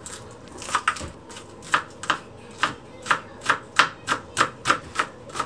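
Kitchen knife chopping on a cutting board, a steady run of sharp strikes about three a second, starting just under a second in.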